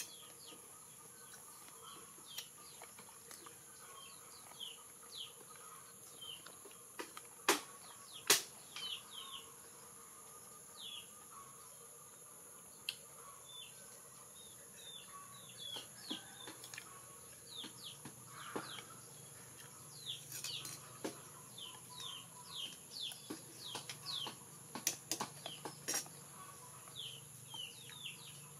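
Small birds chirping: many short, high, falling chirps scattered throughout, with two sharp clicks about eight seconds in and a faint steady high whine underneath.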